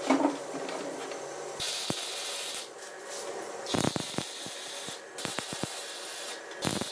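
Wire-feed (MIG) welder arcing on a steel axle housing, in three short runs of crackling, sputtering hiss about a second each, like tack welds. A knock at the very start.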